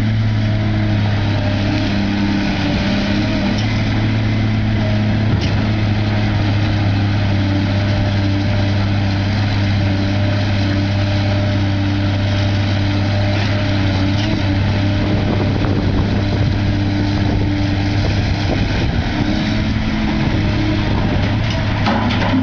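Heavy construction machine's diesel engine running steadily at a constant speed, a loud, even drone.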